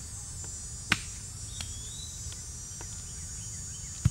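Steady chorus of crickets, a continuous high shrill, with two sharp knocks, one about a second in and a louder one at the very end.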